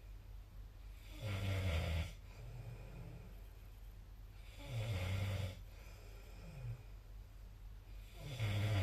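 A sleeping person snoring: three loud snores about three and a half seconds apart, each followed by a softer breath.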